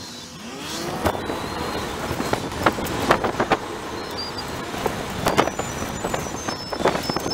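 Converted minivan ice cream truck driving, heard from inside: steady road and engine noise with sharp rattles and knocks every second or so. A faint chime tune plays in the background.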